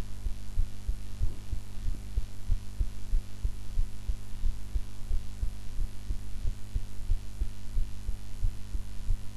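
A young woman's heartbeat after eating: an even, steady run of low thumps, with a steady hum underneath.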